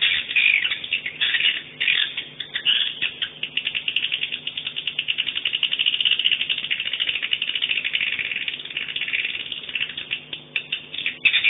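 Swiftlet chattering calls: rapid, high-pitched clicking trills that run into a continuous buzzing rattle, typical of a swiftlet-house lure sound.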